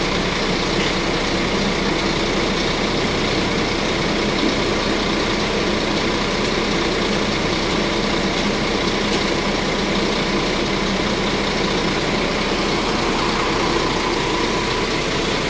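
A vehicle engine running steadily with road noise, as heard from a moving vehicle.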